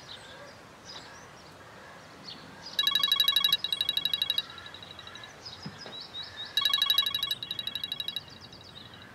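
Mobile phone ringing: two bursts of a rapid electronic trill, each about a second and a half long and about four seconds apart. Faint bird chirps sound between them.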